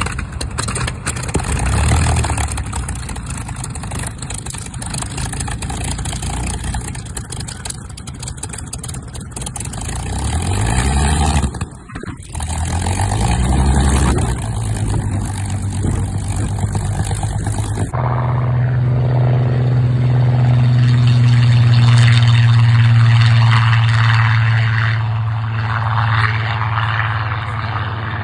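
Piston engine of a Spitfire-style fighter running on the ground with its propeller turning, revved up and back down twice about 11 and 13 seconds in. After a cut about 18 seconds in, a steady, louder, deeper engine drone takes over.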